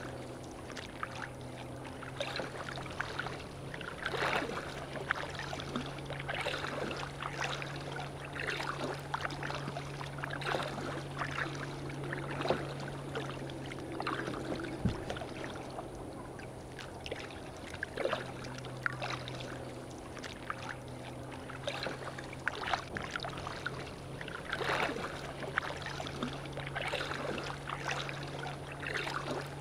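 Kayak paddle strokes: water splashing and dripping off the paddle blades every second or two over lapping water, with a steady low hum underneath.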